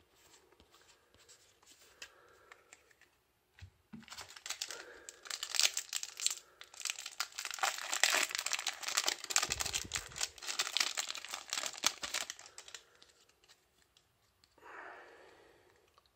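A foil Yu-Gi-Oh booster pack wrapper being torn open and crinkled, a dense crackling that starts about four seconds in and lasts about eight seconds.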